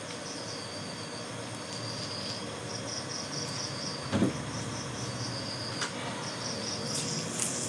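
Ridge gourd and potato slices frying in oil in a wok, a steady soft sizzle, with one knock of the spatula against the pan about four seconds in. An insect, cricket-like, chirps in short runs in the background.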